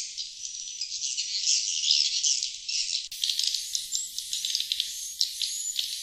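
Recorded lure call of sriti swiftlets: a dense, continuous high twittering chatter of many quick chirps, the outdoor calling sound played to draw wild swiftlets in to roost and nest. About halfway through the sound turns brighter and fuller.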